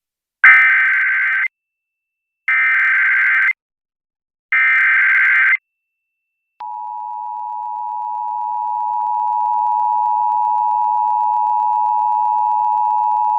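Emergency Alert System Required Monthly Test on NOAA Weather Radio: three bursts of about a second each of the screeching SAME digital header data, a second apart. After a second's pause a steady, piercing attention tone starts, swells in level over its first few seconds and then holds.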